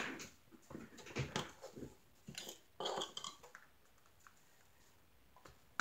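Small clear plastic drill containers being handled on a tabletop: a run of light plastic clicks and taps over the first two seconds, another short burst of clicking about three seconds in, then quiet.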